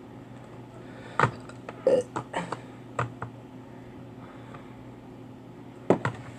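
Small sharp clicks and taps of a Samsung Galaxy S4's parts being handled during reassembly: one about a second in, a quick cluster around two seconds, two more near three seconds and a pair near the end, over a steady low hum.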